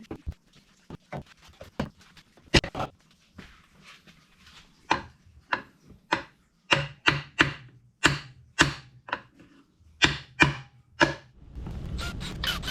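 A series of sharp knocks or taps, sparse at first and then about two a second, followed near the end by a steady rumbling noise that starts suddenly.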